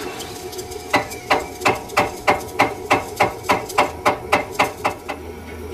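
A hammer striking metal in a steady run of about fifteen ringing blows, roughly three a second, over a steady low hum. The blows stop shortly before the end.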